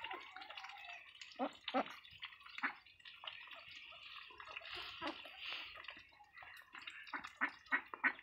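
Domestic ducks dabbling in a bowl of wet feed: their bills make a steady wet slurping, splashing and clicking. Louder short, sharp sounds come about a second and a half in and again several times near the end.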